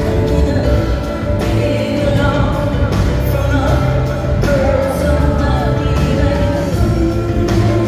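Live rock band performance: a woman singing a wavering melody over a full band, with heavy bass and drum hits underneath.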